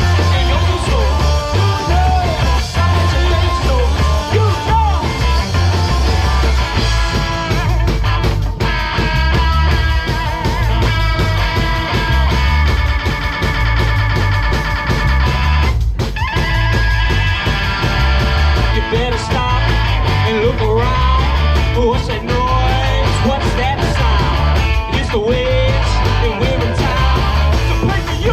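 A rock band playing live: electric guitar, bass and drums, with singing.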